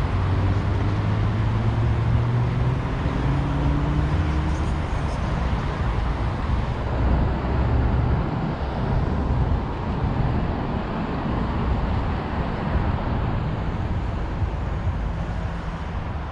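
Road traffic going by close at hand: a steady rumble of cars and larger vehicles, with one engine drone rising slightly in pitch in the first few seconds.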